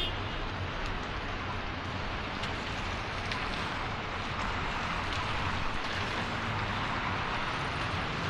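Steady hiss of rain and wet road noise, with a low rumble of traffic underneath.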